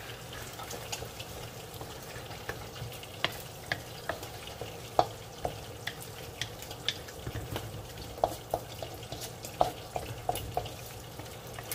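A wooden spatula stirring and scraping scallops and vegetables around a large aluminium wok, making irregular light knocks over a steady sizzle of the food sautéing in oil.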